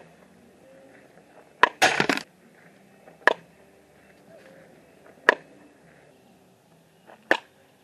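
Softball bat striking pitched softballs: four sharp cracks about two seconds apart. A short rattling noise follows just after the first.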